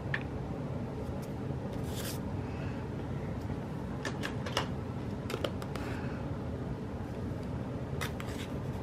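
Light handling of paper stickers and washi tape at a desk: scattered small clicks and brief rustles, a handful over several seconds, over a steady low background hum.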